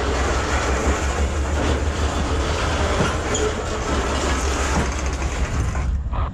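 Loaded iron-ore gondola wagons rolling past at close range, their steel wheels running over the rails in a dense, steady noise that cuts off abruptly near the end.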